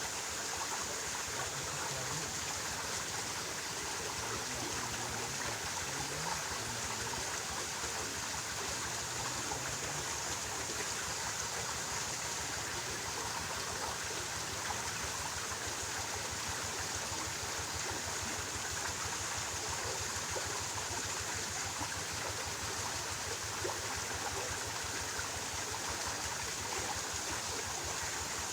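Flowing stream: a steady, unbroken rush of water.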